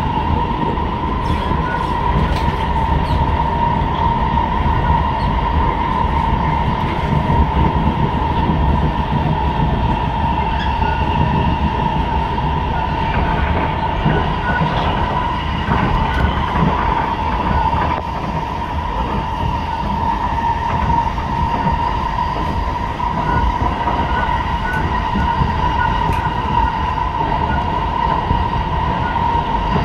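Singapore MRT train running, heard from inside the carriage: a steady low rumble of wheels on track with a continuous whine over it.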